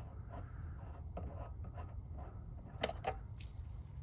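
Light knocks and rubbing from hands working the camper's plastic low-point drain caps, a couple of sharper clicks about three seconds in, over a faint steady low rumble.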